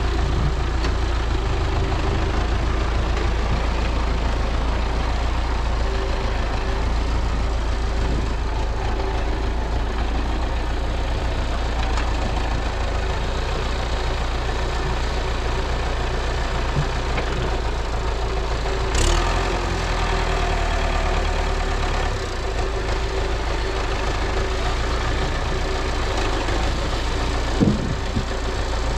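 MTZ-82 tractor's diesel engine running steadily at a low, even speed, with a sharp click about two-thirds of the way through and a short knock near the end.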